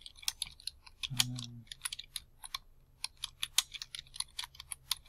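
Typing on a computer keyboard: a quick, irregular run of key clicks as a line of text is typed.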